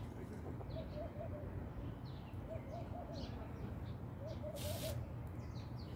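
Dove cooing: three short phrases of a few quick notes each, repeating about every second and a half to two seconds, over a steady low background hum. A brief rustle sounds a little past halfway.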